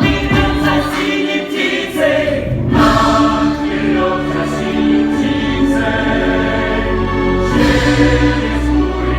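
Choral singing with music: several voices holding sustained notes over a low bass that enters about halfway through.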